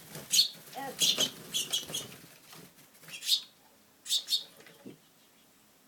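Finches chirping indoors: a quick run of short, high chirps, then a single chirp and a pair of chirps a few seconds in.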